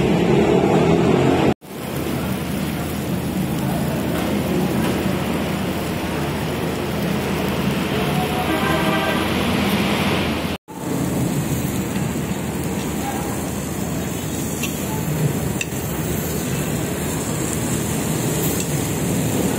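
Brief restaurant chatter and clatter, then crispy sisig sizzling on a hot cast-iron sizzling plate: a steady dense hiss, with a few light clicks of fork and spoon on the plate near the end.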